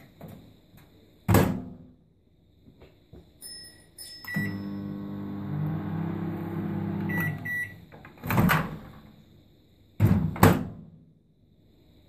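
Countertop microwave oven being worked: the door shuts with a loud clunk, a keypad beeps, and the oven runs with a steady hum for about three seconds before stopping with a couple of short beeps. Two more loud clunks of the door and latch follow.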